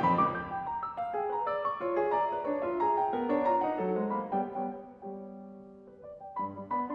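Grand piano played solo: a loud chord at the start, then a busy stream of fast notes that thins out to a held chord fading away about five seconds in, before quick, sharply struck notes with low bass start up again near the end.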